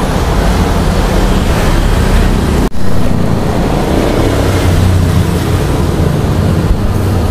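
Loud, steady roar of a roadside street-food stall, with a deep rumble underneath: a cooking fire under a boiling wok and road traffic. It cuts out for an instant a little under three seconds in.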